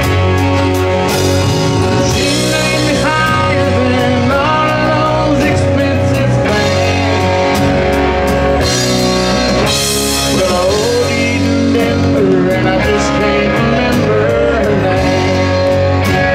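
Live rock band playing an instrumental break between verses: an electric guitar plays a lead line with bent notes over drums, bass guitar and acoustic guitar.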